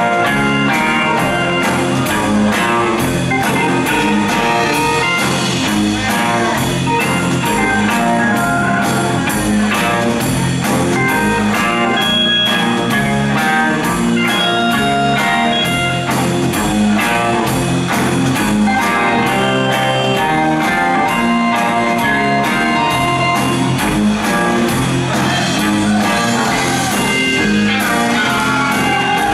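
Live blues-rock band playing: electric guitar over Hammond XB-1 organ and drums, with a steady beat.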